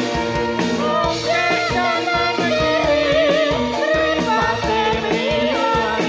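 Live Javanese jathilan accompaniment music played through a PA: steady instrumental notes over regular drum strokes, with a singer's wavering, ornamented melody coming in about a second in.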